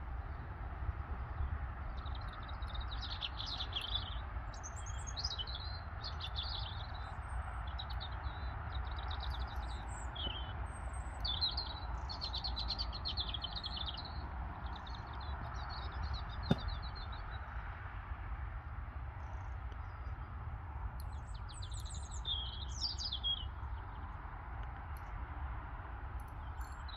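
Small birds chirping and singing in short bursts, over a steady low rumble, with a single sharp click about sixteen seconds in.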